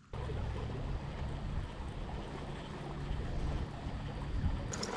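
Steady noise of wind and moving water on a river, with a low rumble underneath.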